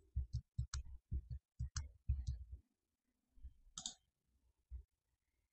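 Clicking of a computer mouse and keyboard: a quick run of short clicks, about five a second, for the first two and a half seconds, then a few scattered clicks.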